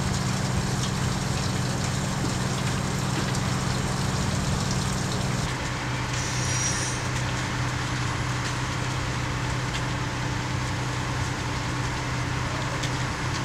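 Fire trucks' engines running steadily, a constant low hum over even engine noise; the hum changes tone about five and a half seconds in.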